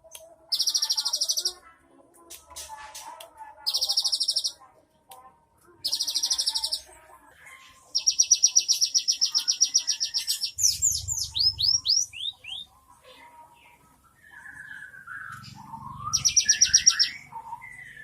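Cinereous tit (gelatik batu) singing: short trains of rapid, high-pitched repeated notes about a second long, repeated every two to three seconds, then a longer trill that breaks into a few falling slurred whistles, with another quick trill near the end.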